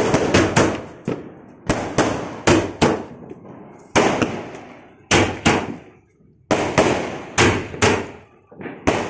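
Consumer multi-shot sky shot firework cake firing shot after shot: sharp bangs about two a second, each with a short fading tail, with a brief lull about six seconds in.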